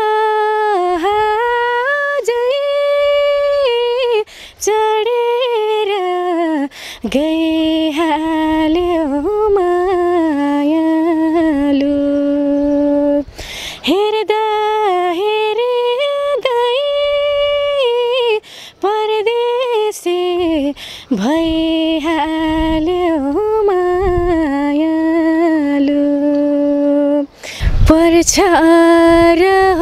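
A young woman singing a Nepali song unaccompanied into a handheld microphone: long held notes with ornamented turns, breaking off briefly for breath every few seconds. Near the end the voice gets louder, with a low rumble on the microphone.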